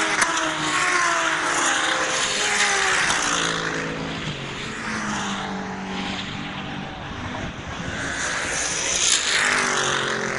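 GT racing cars passing at speed along the circuit, their engine notes dropping in pitch as they go by. The sound fades in the middle, and another car's engine comes up and passes near the end.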